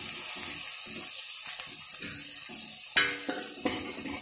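Khipoli, onion and green chilli frying in mustard oil in a kadhai with a steady sizzle, while a steel ladle stirs and scrapes them against the pan. About three seconds in, the ladle strikes the pan twice with sharper, briefly ringing clinks.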